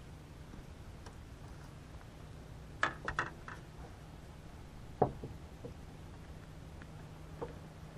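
Handling gear and a just-landed fish on a bass boat's deck: a quick cluster of clicks and knocks about three seconds in, one sharp knock about five seconds in, and a lighter knock near the end.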